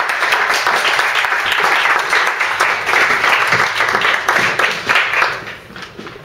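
Small audience applauding at the end of a speech, a steady patter of many hands that dies away near the end.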